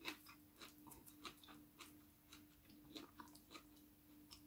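A person chewing a mouthful of salmon laab and rice, with faint wet smacks and mouth clicks coming at irregular intervals.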